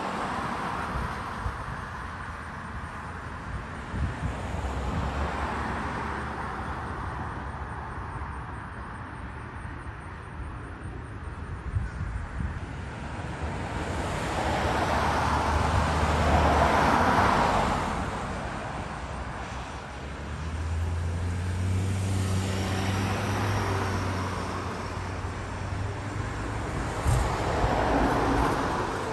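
Outdoor traffic noise: vehicles swell past one after another, the loudest pass about halfway through, with a low engine hum under the second half.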